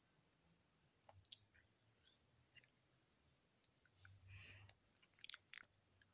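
Faint, scattered small clicks and soft lip-smacking mouth sounds as lipstick is put on, with a short soft rustle about four seconds in.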